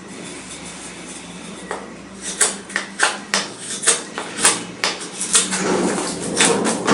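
Folding knife blade shaving a small block of wood by hand: a run of short, sharp cutting strokes, about two a second, starting about two seconds in.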